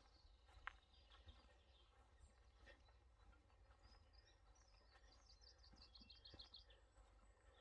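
Near silence with faint birdsong: a songbird's quick run of repeated high chirps about five and a half seconds in, and a single soft click near the start.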